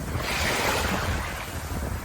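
Sea waves washing on a shore: one wave surges in just after the start and ebbs away.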